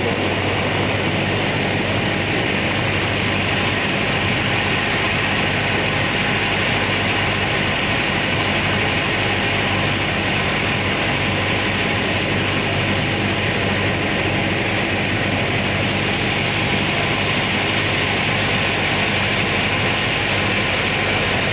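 Boat engine running steadily: a constant low drone under an even hiss of wind and water.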